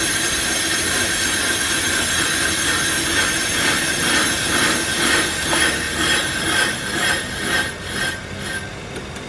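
On-car brake lathe turning a car's brake disc while its cutting tool skims the rotor face: a steady metallic screech with high ringing tones, weakening near the end. The disc is being trued because it is warped, and that runout made the caliper knock and caused the brake noise.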